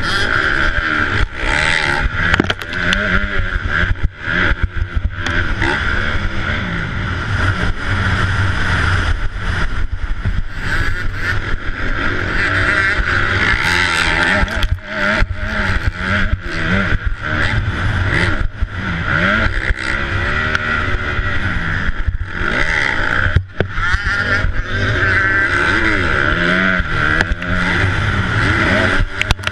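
250cc four-stroke motocross bike engine, heard from the rider's helmet, revving hard and backing off again and again as it is ridden around a dirt track, with a few brief throttle chops.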